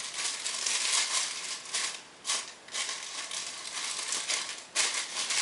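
A bag crinkling and rustling as cookies are handled in it, in uneven spells with short lulls about two seconds in and again past four seconds.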